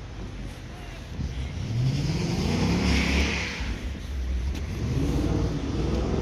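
A car accelerating past. Its engine note rises, drops about three and a half seconds in as it changes gear, then rises again, with a swell of tyre noise as it passes.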